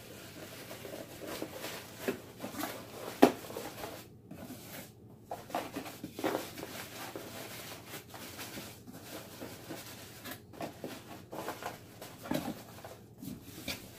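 Bubble wrap and cardboard rustling and crinkling as a digital alarm clock is pressed down into a small box, with scattered light knocks from the handling and one sharper knock about three seconds in.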